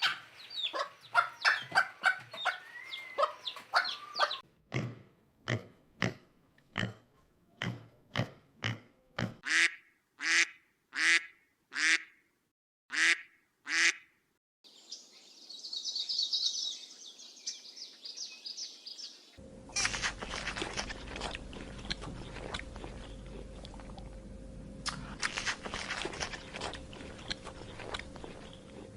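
Domestic fowl calling in a run of separate clips: a dense flurry of calls, then about a dozen loud calls roughly a second apart, then a few seconds of high, rapid chirping, then a busier stretch of calls over steady background noise.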